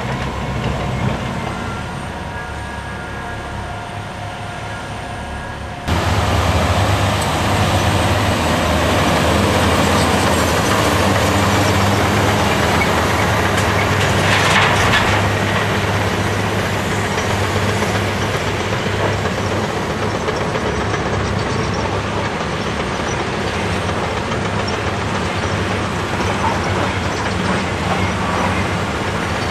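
Diesel engines of a Caterpillar 345B excavator and a Cat 725 articulated dump truck running during loading. About six seconds in the sound jumps louder to Caterpillar articulated dump trucks driving on a gravel haul road, engine and tyres rumbling, with a brief hiss about halfway through.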